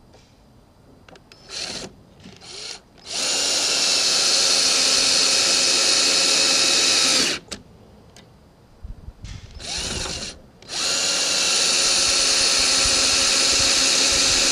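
Power drill run in a few short blips, then held at a steady full-speed whir for about four seconds. After a pause it spins up and runs steadily for another four seconds before stopping sharply.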